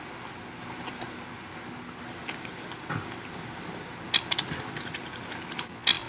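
Mouth sounds of people eating pizza: chewing, with scattered smacks and clicks, the loudest about four seconds in and again near the end.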